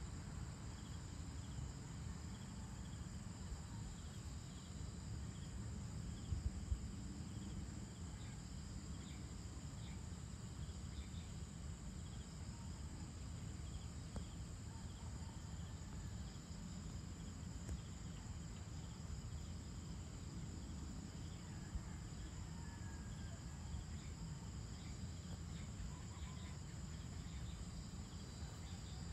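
Dusk insect chorus, a steady high-pitched trill, over a constant low rumble. A couple of brief thumps come about six seconds in.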